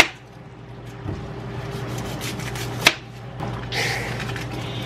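Hands handling and peeling a dry onion: papery skin rustling and crackling, with two sharp knocks, one at the start and one about three seconds in. A steady low hum runs underneath.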